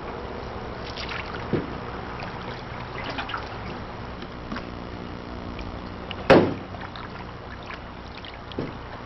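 Canoe being paddled, with water trickling off the paddle and a few knocks of the paddle against the hull. The loudest is one sharp knock about six seconds in.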